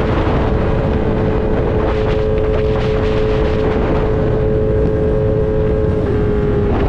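Kawasaki Z900's inline-four engine running through an Austin Racing full exhaust at a steady, nearly constant engine speed while cruising. The pitch dips slightly near the end.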